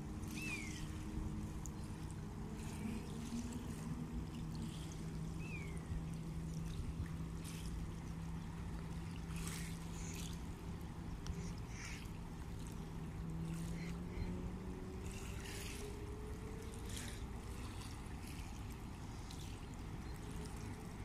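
Small river waves lapping and splashing against the stony bank of the Rhine, over a low steady engine hum. A bird chirps twice, about five seconds apart.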